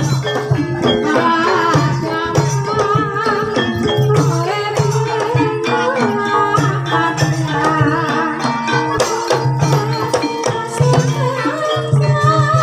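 Live Javanese gamelan music accompanying an ebeg hobby-horse trance dance: pitched melody lines over a repeating low drum beat and quick percussion strokes, played steadily throughout.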